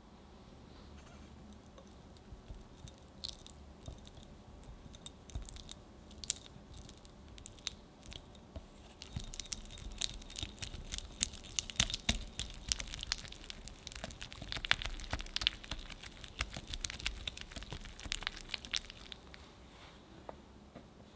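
A silicone whisk creams softened butter in a glass mixing bowl: wet, squishy clicks and light taps against the glass. The strokes are sparse at first, then fast and busy through the middle.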